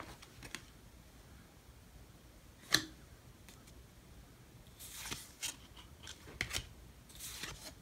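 Topps baseball cards being flipped one at a time through a stack in the hands: short, sharp card-on-card snaps, the loudest about three seconds in, with brief sliding rustles near five seconds and again near the end.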